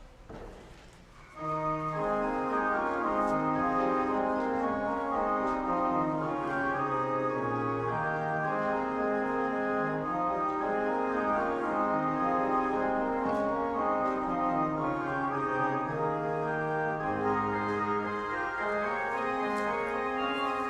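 Church organ playing slow, sustained chords, coming in suddenly about a second and a half in.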